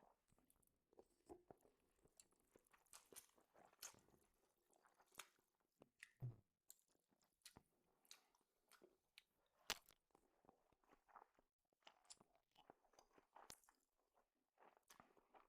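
Faint close-up chewing and crunching of food in the mouth, a run of irregular small clicks and crackles, with a soft low thump about six seconds in.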